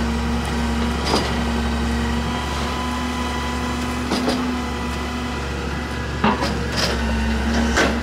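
Claw garbage truck running steadily as its hydraulic grapple works, giving a constant hum with a held tone. About five sharp knocks and clunks come from the claw grabbing piles of carpet and padding.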